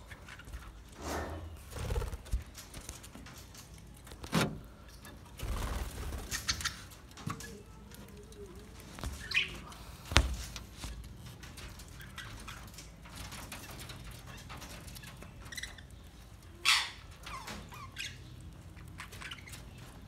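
Budgerigars in an aviary giving scattered short, sharp chirps and calls, with a few soft bumps and rustles between them and a louder call near the end.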